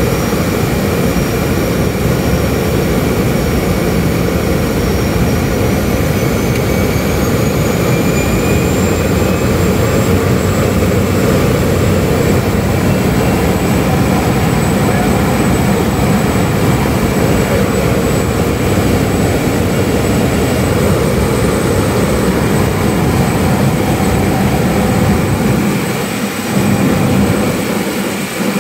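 A de Havilland seaplane's propeller engine heard from inside the cockpit, running steadily on the landing approach, with a high thin whine that rises in pitch a few seconds in. Near the end, as the floats reach the water, the deep drone drops away briefly.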